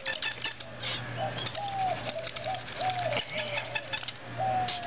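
Mullein spindle being spun in a fireboard by hand drill: a short squeak repeats with each stroke, about every half second, over dry scratchy rubbing of the spindle and hands.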